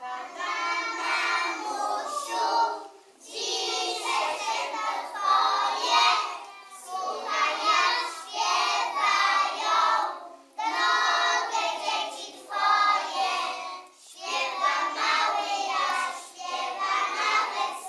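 A group of young children singing a song together in unison, in phrases with short breaks between them.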